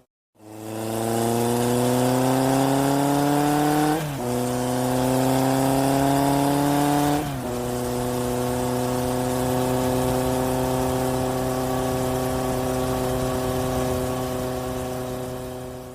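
Engine sound effect of a vehicle accelerating: the engine note rises steadily in pitch, drops sharply with a gear change about four seconds in and again about seven and a half seconds in, then holds a steady pitch while cruising.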